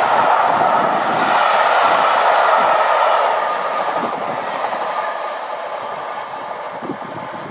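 High-speed express train passing through a station at speed without stopping. A loud rush of wheel and air noise carries a whine that drifts slightly lower in pitch. It eases off after about three and a half seconds, with a few faint wheel clicks.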